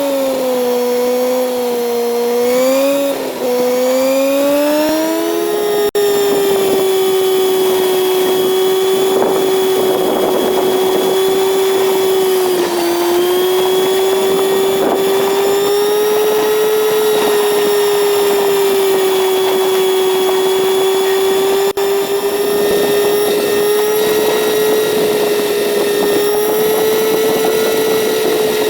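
Kawasaki Z900's inline-four engine running under way at steady road speed, its note wavering slightly during the first few seconds. About six seconds in there is a brief drop and the pitch changes, then it holds steady for the rest, with wind noise underneath.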